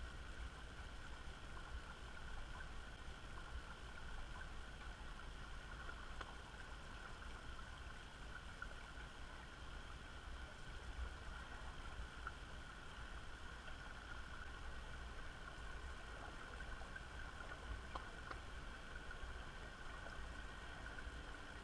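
Underwater noise of a passing lake freighter, the CSL Laurentien: a steady low rumble with a constant thin whine above it, which the uploader jokingly blames on a bad bearing.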